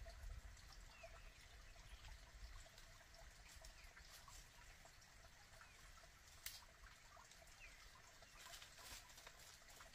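Near silence: faint outdoor background hiss with a few soft, high chirps and occasional small clicks.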